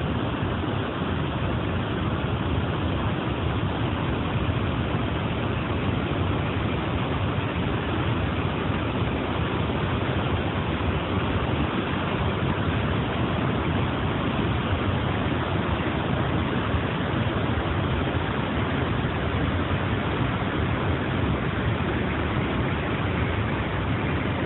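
Steady, unbroken rush of Niagara Falls' water pouring down and crashing onto the rocks below, an even wall of noise.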